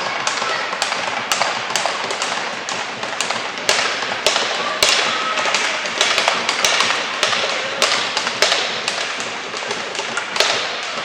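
Irregular sharp clacks and taps, several a second, over a steady hiss of background noise: the play sounds of a youth team game in a rink or gym.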